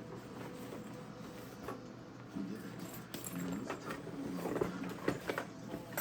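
Hard plastic tool packaging being handled, with scattered sharp clicks and knocks that come thicker and louder in the second half.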